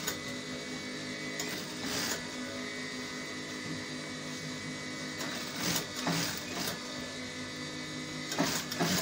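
Sewing machine running, stitching a seam through fabric: a steady motor hum with a few short knocks.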